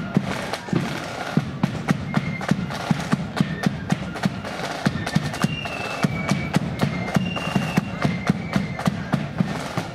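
Marching flute band playing: snare drums and bass drum beat a steady march with rapid, regular strikes while flutes carry a tune in short held high notes.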